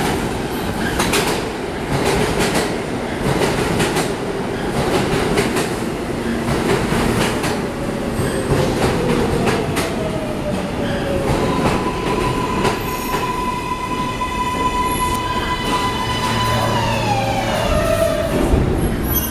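Kawasaki R143 subway train pulling into the station and braking to a stop. The wheels clack over the rail joints, then a high electric whine rises over the running noise and drops in pitch near the end as the train comes to a halt.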